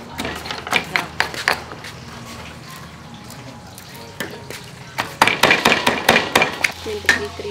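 Stone pestle pounding garlic in a stone mortar: a few strikes, a pause of a few seconds while cloves are added, then a fast run of about five strikes a second about five seconds in.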